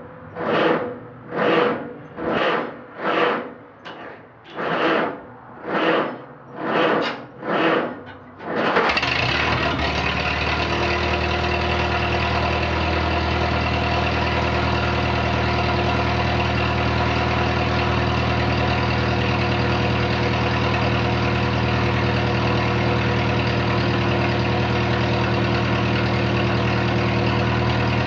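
Straight-piped four-cylinder gas engine of a 1962 Farmall 140 tractor cold-starting on its 6-volt system. The starter cranks slowly, with a loud surge about every 0.8 s. About nine seconds in the engine catches and settles into a steady idle.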